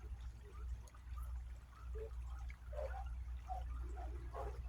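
Small creek water trickling and gurgling, with many quick irregular drips and splashes over a steady low rumble.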